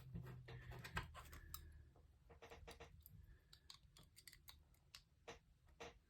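Faint, scattered small metallic clicks and taps of a lock and lock-picking tools being handled.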